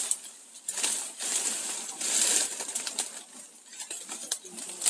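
Bundle of leaves rustling and crackling in bursts, with several sharp clicks.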